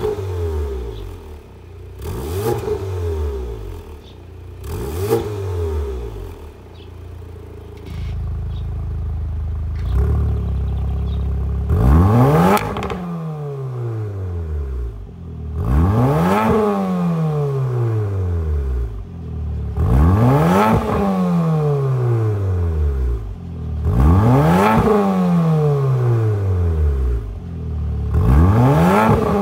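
Porsche Macan 2.0T's turbocharged four-cylinder engine revved while stationary, through a catless downpipe and valved cat-back exhaust. Three short blips come first, then a steady hold at raised revs, then five harder revs about four seconds apart, each snapping up and falling back slowly.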